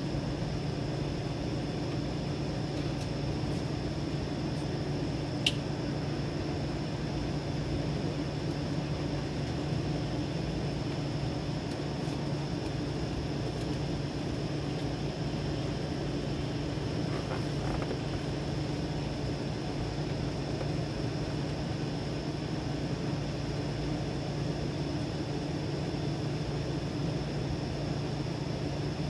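A steady low mechanical hum over a constant background rush, with one sharp click about five and a half seconds in.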